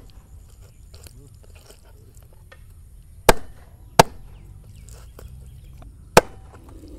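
Meat cleaver chopping raw pork belly on a wooden cutting board: three sharp chops, one about three seconds in, another under a second later, and a third near the end.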